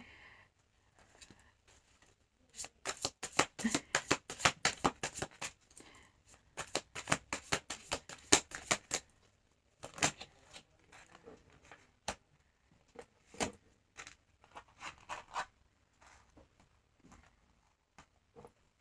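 Tarot cards shuffled by hand: a quick run of card flicks and snaps, several a second, for about six seconds. Then a few single snaps follow as cards are drawn and laid down.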